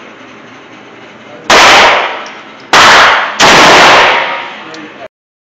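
Three very loud shots from a Ruger Redhawk .44 revolver, each ringing on in the echo of an indoor range. The first comes about a second and a half in, and the last two fall about two-thirds of a second apart. The sound cuts off suddenly near the end.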